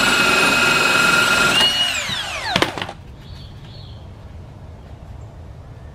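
Handheld power driver's electric motor whirring steadily at high speed as it spins the lower nut of a sway bar end link. About two seconds in the trigger is released and the whine slides down in pitch as the motor winds down, with a couple of clicks.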